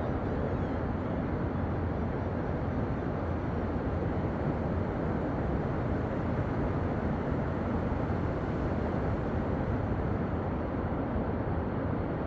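Steady rumbling noise with most of its weight low, even throughout.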